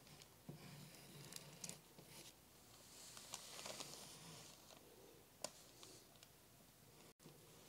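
Pencil scratching faintly across paper as curved lines are drawn, with a few light ticks; the sharpest comes about five and a half seconds in.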